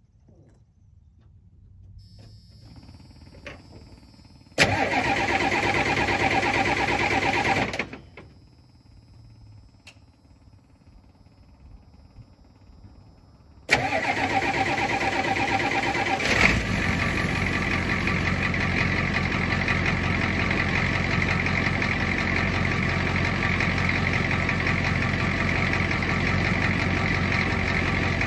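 7.3 L IDI V8 diesel engine being cranked by its starter for about three seconds without catching. About fourteen seconds in it is cranked again, fires a couple of seconds later and settles into a steady idle.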